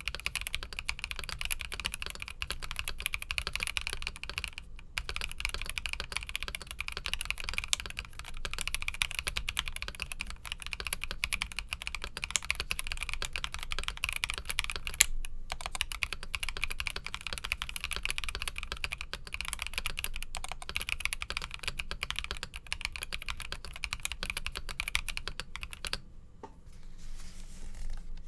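Fast, continuous typing on a stock, unmodified Epomaker EK68 mechanical keyboard: a dense run of key clicks with a couple of brief pauses, stopping about two seconds before the end.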